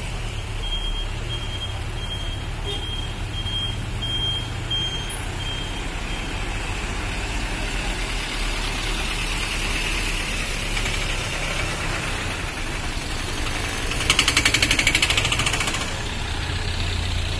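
Heavy truck engine running with a low steady rumble, its reversing alarm beeping about one and a half times a second for the first several seconds. Near the end a loud, rapidly pulsing noise lasts about two seconds.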